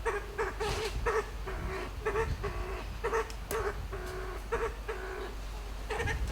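Kalij pheasant making its trilling, clicking calls from its roosting tree: a run of short, pitched notes, about two a second, with one sharp click about three and a half seconds in.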